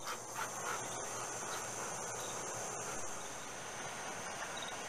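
Steady, high-pitched chorus of insects, a continuous even buzzing trill.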